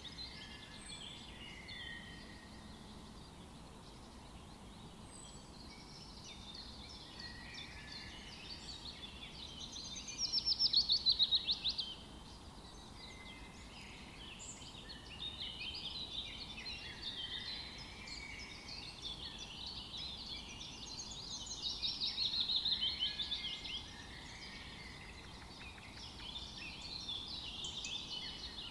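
Several forest songbirds singing and chirping at once over a faint steady hiss. A louder, rapid trill of quickly repeated notes stands out twice.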